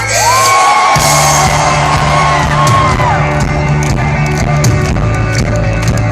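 Live rock band playing, recorded from the crowd. A voice holds a long sung note over the first three seconds, and the bass comes back in about a second in. Audience members whoop and shout.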